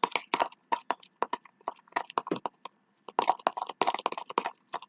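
Homemade shower-gel-and-salt slime being squeezed and worked by hand, making rapid irregular sticky clicks and pops, with a brief pause in the middle.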